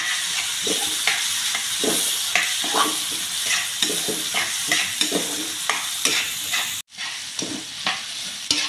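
Julienned carrots, bell pepper and ginger sizzling in oil in a wok while a spatula repeatedly scrapes and knocks against the pan in quick strokes, about twice a second. The sound drops out for an instant about seven seconds in.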